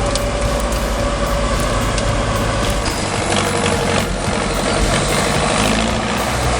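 Heavy vehicle engine running steadily under load, with a change in its sound about three seconds in.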